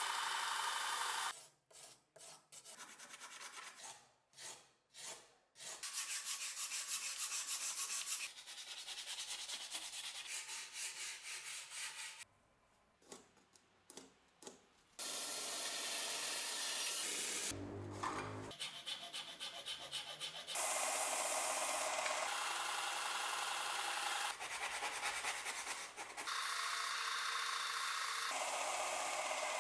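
Ash-wood handle scales being sanded against the disc of a combination belt-and-disc sander: a steady abrasive grinding that stops and restarts at several cuts. Twice it gives way to quieter stretches of separate short strokes from a hand file on the wood.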